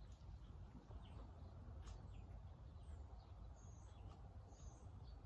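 Near silence: a low outdoor rumble with a few faint, short bird chirps and a single faint click about two seconds in.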